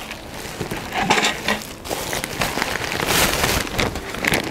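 A large thin plastic bag rustling and crinkling as it is handled, full of irregular small crackles, with a louder rush about three seconds in.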